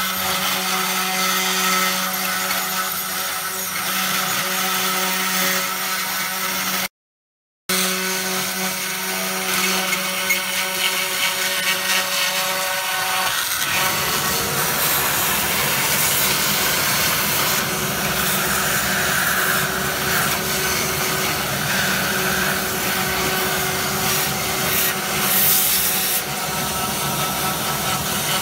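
Desktop CNC router spindle running steadily while its end mill cuts into painted wood, with a brief cut-out of the sound about a quarter of the way in. About halfway a vacuum cleaner starts with a rising whine and runs on alongside, sucking up the chips at the cutter.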